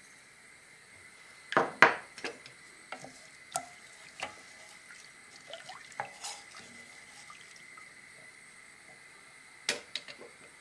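Wooden spatula stirring long-grain rice in water in a stainless steel pot, knocking against the pot with sharp clicks and swishing the water. The loudest knocks come about one and a half to two seconds in, with a couple more near the end.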